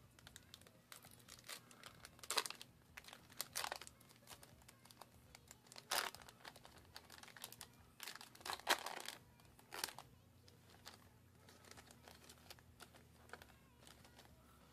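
Foil trading-card booster packs crinkling in the hands as they are handled and torn open, with a few louder, sharper crackles scattered among the quieter rustling.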